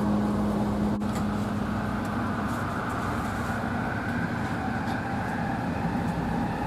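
Steel-wheeled linear-motor light-rail car running, heard from inside the car: a steady rumble of wheels on rail with a low motor hum that fades out about two and a half seconds in.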